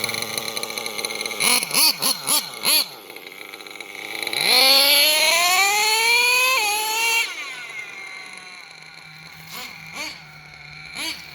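RC truck's motor and reversing gearbox whining at high revs: four quick throttle blips, then a long rising whine lasting about three seconds that drops suddenly near its end, then a few fainter blips. The high-rpm sound comes from the gearbox having slipped out of reverse gear, which the owner first mistook for the slipper clutch slipping.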